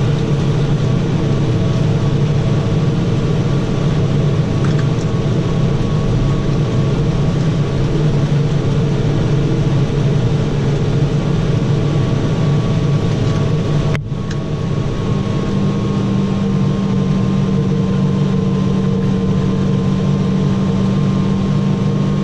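Tractor engine running at a steady speed, a continuous drone. About two-thirds of the way through, the sound cuts abruptly and resumes with a slightly different steady pitch.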